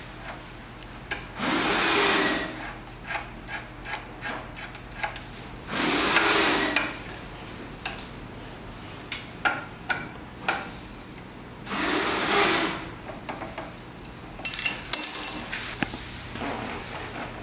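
Tools bolting a footpeg and landing-gear bracket to a motorcycle frame: three bursts of about a second each from a small power tool, with metal tools clicking and clinking between them. A quick flurry of sharp metallic clinks comes near the end.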